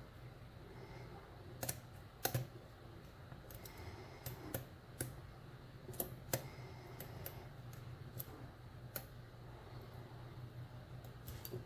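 Lock pick and tension tool working the pin stack of a Titan euro-profile cylinder padlock fitted with security pins: irregular light metallic clicks and ticks, the sharpest a pair about two seconds in, over a low steady hum.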